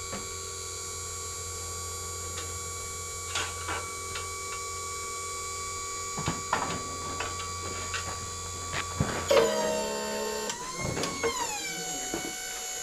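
Electric hydraulic pump of a tube bender running with a steady whine and scattered metal clicks and knocks. About nine seconds in the pitch shifts and slides down and back up as the pump takes load.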